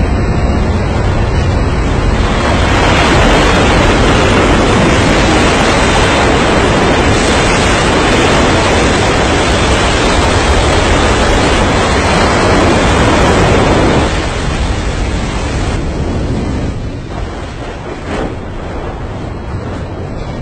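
Loud, steady rushing roar of rough sea water and spray, mixed with wind noise; it eases off about two-thirds of the way through.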